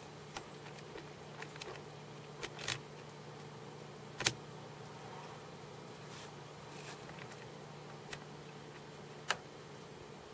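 A steady low hum over faint hiss, with several short sharp clicks scattered through it, the loudest about four seconds in.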